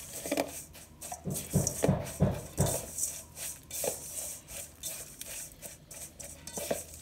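Spatula stirring a stiff, sticky mix of granola, peanut butter and honey in a stainless steel bowl: irregular scrapes and knocks against the metal, heaviest in the first few seconds and lighter after.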